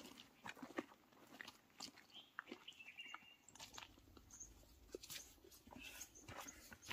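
Faint, irregular crunching footsteps of hikers walking over dry leaves and gravel on a trail.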